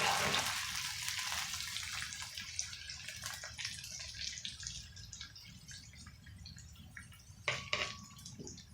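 Chopped onions sizzling and crackling in hot oil in a frying pan, the sizzle gradually fading. A couple of sharp clicks near the end.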